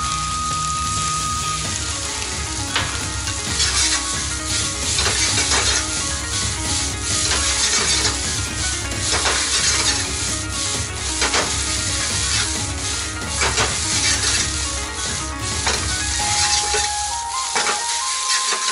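Egg fried rice sizzling in a wok over a gas flame while a steel wok ladle stirs and scrapes it, knocking against the wok about once a second.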